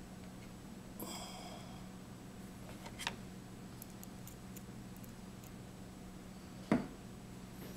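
Low steady hum with a few small handling sounds: a soft rustle about a second in, a light click about three seconds in, and a sharper, louder click near the end, as small laptop screen parts and screws are worked by hand.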